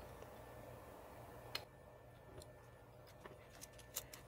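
Near silence with a few faint, short clicks and taps as a small wired part is handled and set down on a cutting mat. The clearest come about a second and a half in and near the end.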